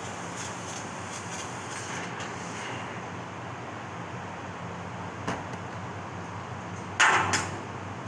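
CNC laser cutting machine running steadily while cutting a patterned steel sheet, with a faint crackle from the cut for the first few seconds. There is a small click about five seconds in, then a loud, brief double burst about seven seconds in.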